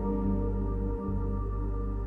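Background music: soft ambient music with sustained held notes and gentle note changes.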